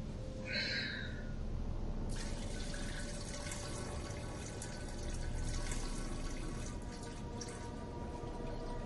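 A thin stream of liquid trickling into a toilet bowl as a boy urinates, starting about two seconds in, over a faint steady hum.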